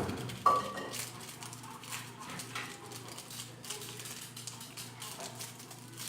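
Kitchen handling sounds at a mixing bowl: two sharp knocks about half a second apart at the start, the second with a short ring, then light scattered clicks and taps over a low steady hum.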